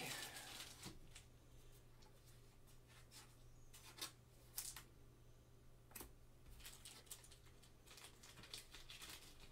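Near silence, with faint rustling and clicking of trading cards and clear plastic card sleeves being handled, and a few sharper clicks around the middle.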